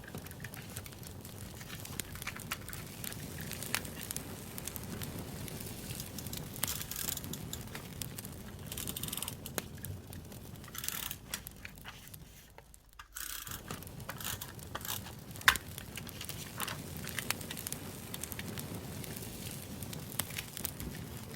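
Campfire crackling, a steady low rush dotted with sharp pops and snaps, mixed with paper and sticker sheets rustling and tearing. The sound briefly drops away about thirteen seconds in, then carries on.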